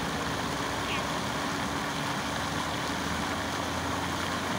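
Fountain jets and a central water column splashing steadily into the basin: a continuous even rush of falling water, with a faint steady hum underneath.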